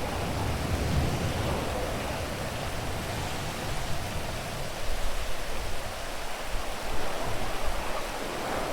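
Steady rain falling, a continuous hiss with small swells in level over the last few seconds.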